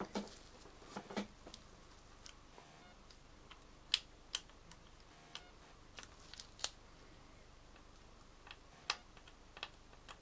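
Faint, scattered sharp ticks and light scratches of a craft-knife blade tip being worked lightly across a circuit-board via, scraping off the solder mask to bare the copper. The ticks come irregularly, the loudest about four seconds in and again near nine seconds in.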